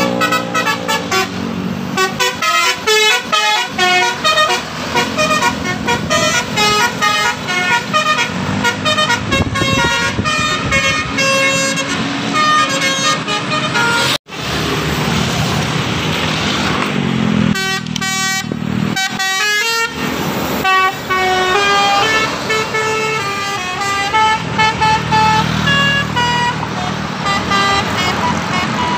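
Tour buses' multi-tone 'telolet' air horns (basuri) playing quick melodic runs of short notes as they pass, over road traffic noise. The sound breaks off sharply for a moment about halfway through, then the horn melodies resume.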